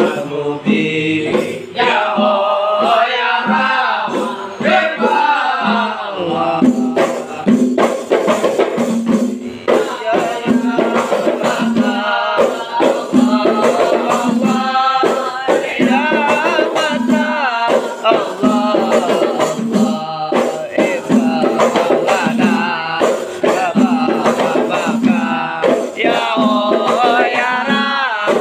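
Group of men chanting hadrah verses in unison, with a low pulse about once a second under the voices and sharp rattling percussion hits.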